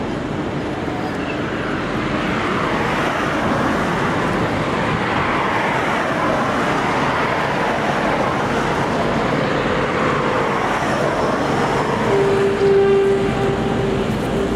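A train running through the station: steady rail and engine noise that builds over the first couple of seconds, with faint rising and falling whines. A short steady tone sounds near the end.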